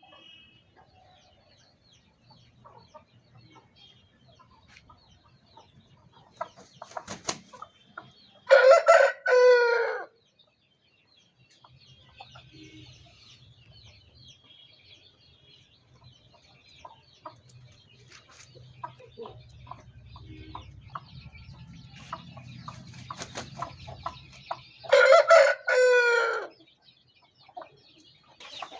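Aseel game rooster crowing twice, each crow a short call of about a second and a half ending in a falling note, with soft clucking in between.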